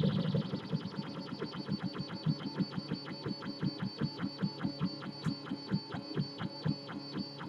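3D printer running a print: its stepper motors pulse quickly and regularly, about six strokes a second, as the print head moves, over a steady hum.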